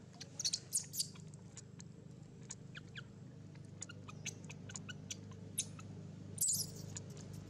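Long-tailed macaques giving short, high-pitched squeaks scattered throughout, with a louder squealing cluster about six and a half seconds in, over a steady low hum.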